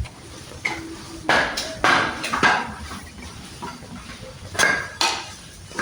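Irregular knocks and clatters of hard objects being struck or handled: a cluster of hits about a second in, and two more sharp knocks near the end.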